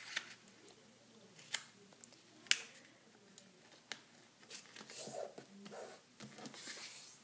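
A sheet of origami paper being folded corner to corner and smoothed by hand: a few faint sharp ticks, then soft crinkling and rustling for a couple of seconds near the end.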